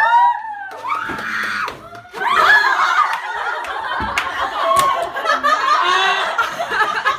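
A short cry of voices at the start, then from about two seconds in a group of young women laughing and shrieking together.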